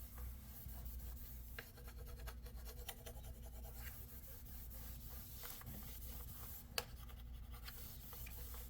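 Plastic separator tool scraping and rubbing alcohol-softened gunk off a laptop's plastic casing, faint and scratchy with small ticks, and one sharp click about seven seconds in.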